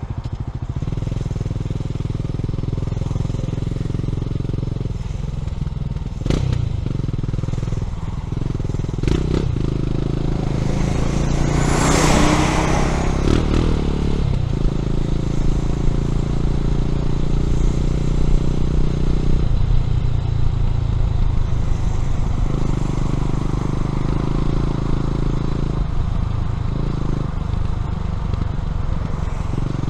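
Honda CB400SS's air-cooled single-cylinder engine running through a Yamamoto aftermarket exhaust while riding, its note changing several times with throttle and gear. About twelve seconds in, a brief whooshing swell rises and falls over the engine.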